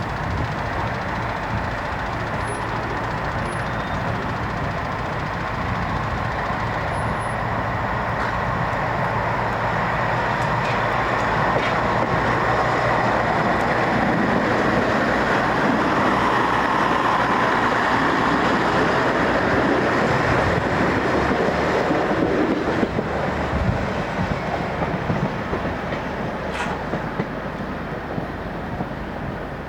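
A train running past: a steady rumble of engine and wheels on rails that builds to its loudest about halfway through and then fades away, with a few sharp clicks near the end.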